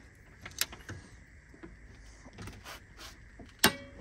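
Scattered metal clicks from a torque wrench and socket working a bolt clamped in a bench vise, with one sharp click near the end that rings briefly like struck steel.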